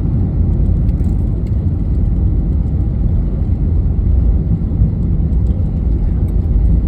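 Steady low rumble of a jet airliner heard from inside the passenger cabin: engine and airflow noise, even throughout.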